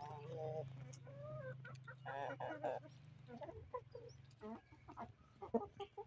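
A flock of domestic hens clucking, with short, overlapping pitched calls throughout.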